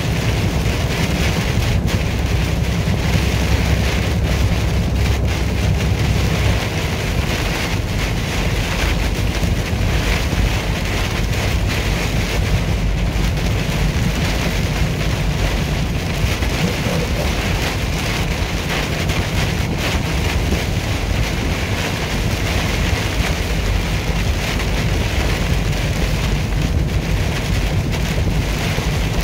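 Moving truck cab driving through a heavy rainstorm: rain and wind against the cab over a steady low road and engine rumble.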